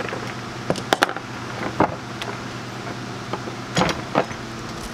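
Clicks and knocks of a stock plastic intake manifold and its rubber hose lines being handled and unclipped on a workbench: a few sharp taps about a second in and two louder knocks near the end, over a steady low hum.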